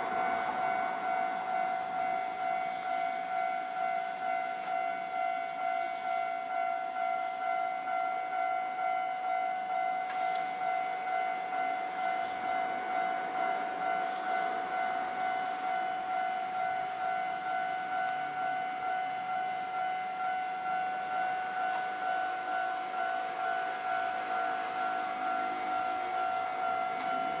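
Japanese railway level-crossing warning bell ringing continuously: an electronic clanging tone repeating evenly about twice a second, signalling an approaching train.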